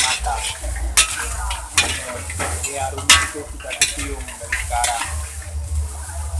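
Metal wok ladle scraping and clanking against a blackened wok about once a second, stir-frying crab and yellow noodles (mie Aceh kepiting) over high heat, under a steady sizzle of frying.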